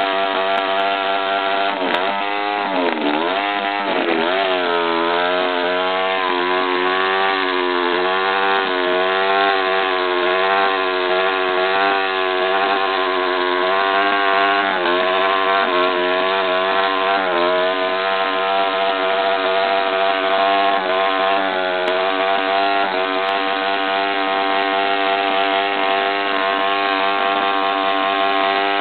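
Motorcycle engine held at high revs during a stationary burnout, the rear tyre spinning on the spot. The revs dip and climb back twice in the first few seconds, then hold high and steady.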